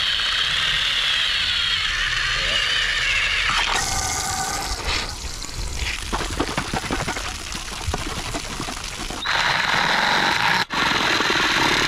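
Cordless drill boring through a tin can, the motor running steadily as the bit grinds the metal. About four seconds in it gives way to water from a garden hose splashing and dripping out of the can, and a little after nine seconds the drilling into the can starts again.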